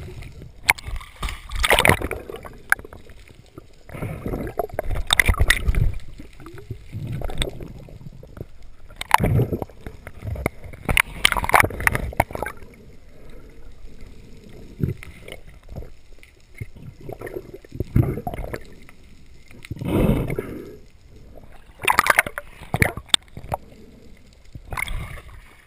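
Muffled water movement heard through an underwater camera housing: irregular bursts of rushing, sloshing water a couple of seconds apart as the diver swims, with a quieter gurgling wash between them.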